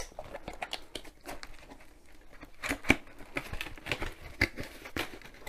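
Cardboard box being handled and worked open by hand: irregular scrapes, taps and clicks of cardboard and packaging, with a sharp click right at the start.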